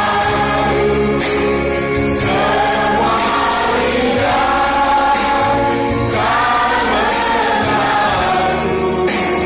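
A group of voices singing a Christian worship song in held, gliding notes over a steady instrumental bass line.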